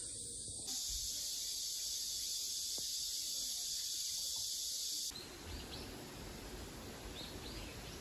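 Steady high-pitched insect chorus, a continuous buzz, that cuts off about five seconds in to a softer, broader rushing background with a few faint high chirps.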